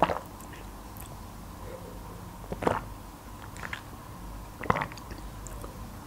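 Close-miked swallowing while drinking drinkable yogurt from a small plastic bottle: three distinct gulps about two seconds apart, with faint mouth clicks between.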